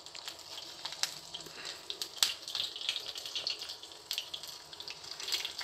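Mustard and fenugreek seeds and a green chilli sizzling in hot oil in a small steel tadka pan, a steady hiss with many scattered sharp crackles and pops: the tempering for sambar.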